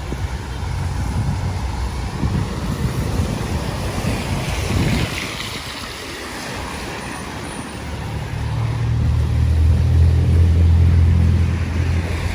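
Road traffic: a vehicle passes about five seconds in, then a large vehicle's engine runs close and loud with a low hum from about eight seconds in, dropping away near the end.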